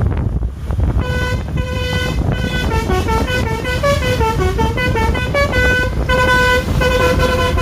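Bus 'telolet basuri' musical horn playing a tune. It comes in about a second in with a repeated held note, runs quickly up and down through several notes, then returns to the held note. Underneath is a low rumble of traffic.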